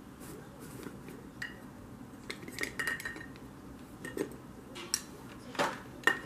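Scattered light clicks and clinks of small hard objects being handled, a few close together about halfway through and the sharpest one near the end.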